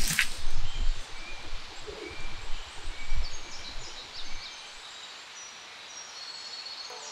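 Forest ambience with birds chirping and whistling. A sharp crack comes right at the start, then low rumbling and rustling as a person slumps down onto the leaf-and-needle floor, fading out about four seconds in.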